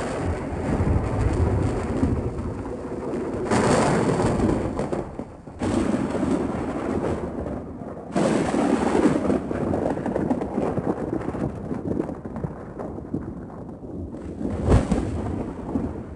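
Thunderstorm sound effects: heavy thunder rumbling and rolling, in several separate peals that begin abruptly a few seconds apart, with a sharp crack about three-quarters of the way through.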